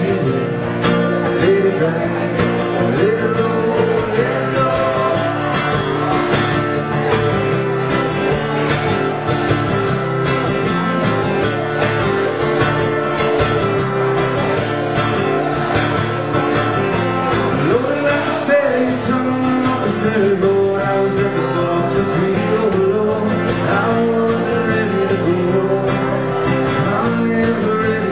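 A man singing with a strummed acoustic guitar, a solo live song performance.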